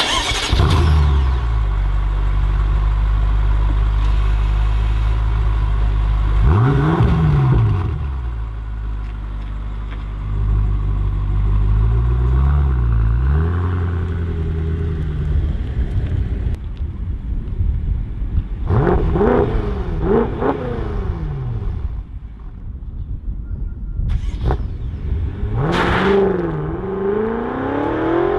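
BMW M5 F10's 4.4-litre twin-turbo V8 through its quad exhaust. It fires up with a loud flare and settles into a steady idle, revved once about seven seconds in and twice in quick succession around twelve seconds. In the second half the car pulls away, the engine note rising and falling through several short accelerations and climbing again near the end.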